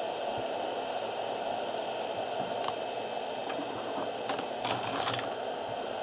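Steady hiss on the radio channel, with a few faint clicks about halfway through and again near the end.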